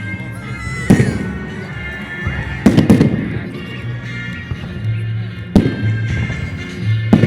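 Fireworks going off: about five sharp, loud bangs a second or two apart, two of them close together near the middle, over music.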